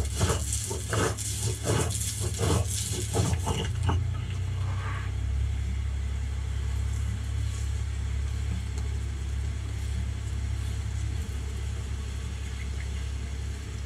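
Stone roller scraping back and forth over a flat grinding stone, grinding red chili paste, about two strokes a second for the first four seconds. After that only a steady low hum.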